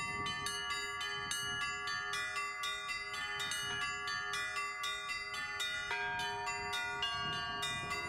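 Russian Orthodox church bells ringing a quick peal of several bells at different pitches, struck about three to four times a second over a lingering lower tone.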